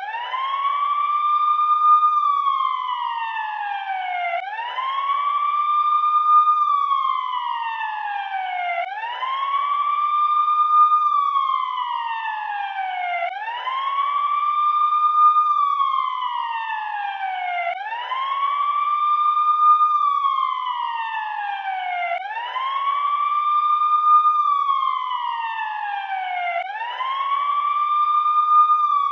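Emergency vehicle siren sounding a slow wail. Each cycle rises quickly, holds briefly at the top and then glides down, repeating about every four and a half seconds.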